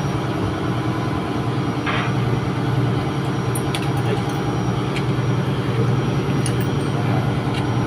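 Steady, even drone of running engine-room machinery, the hum of a ship's diesel engine, with a few faint light clicks from work on a starter motor's cover.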